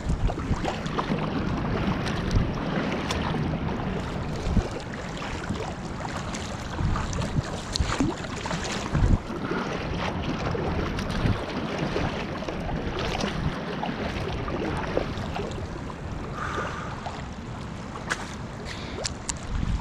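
Kayak paddle strokes splashing in sea water, with water lapping against the kayak hull and wind noise on the microphone.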